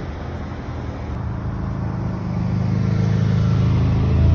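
Car engine and road rumble heard from inside the car as it rolls slowly, a steady low hum that grows gradually louder.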